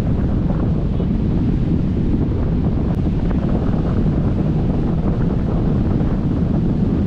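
Steady wind rushing over the camera microphone in paraglider flight: a constant, unbroken low rumble.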